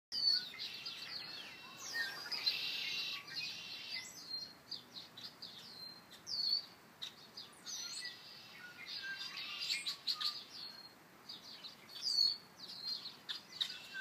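Several songbirds singing and calling at once, a busy chorus of short chirps and quick whistled phrases that overlap one another, densest about two seconds in.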